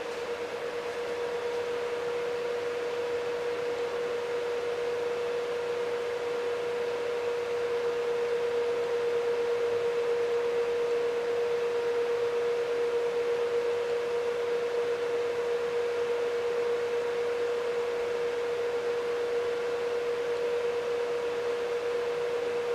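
A steady hum at one unchanging pitch over a constant even hiss.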